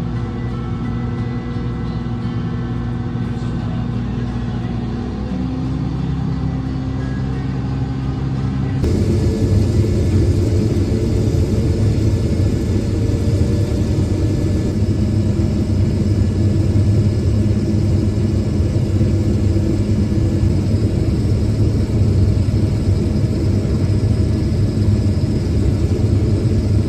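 Harvest machinery running steadily, a diesel engine hum with mechanical rumble. About nine seconds in it changes abruptly to a louder, fuller rumble.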